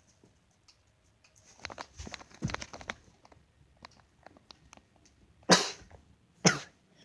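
Dog sneezing twice, about a second apart, each sneeze a short sharp burst. Before the sneezes come a few seconds of soft clicks and rustling.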